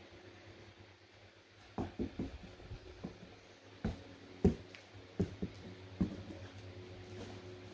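A cardboard box being handled and cut open with scissors: a series of sharp knocks, taps and snips, the loudest about four and a half seconds in, over a faint steady hum.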